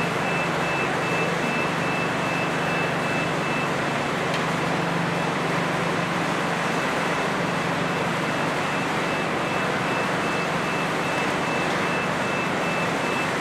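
A vehicle's back-up alarm beeping at an even pace, high and thin, over a constant hiss of outdoor noise.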